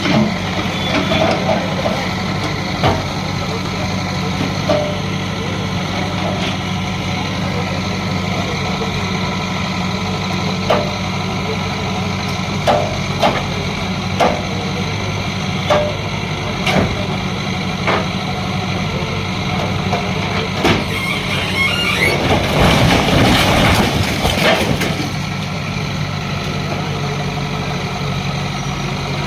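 Bulldozer's diesel engine running steadily, with sharp knocks every second or two. About two-thirds of the way through comes a louder rough noise lasting about three seconds.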